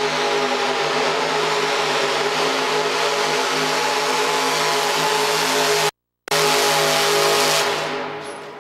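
Mini pulling tractor's engine held wide open at a steady pitch under load as it drags the sled. The sound drops out for a moment about six seconds in, comes back, then falls away near the end as the throttle comes off at the end of the pull.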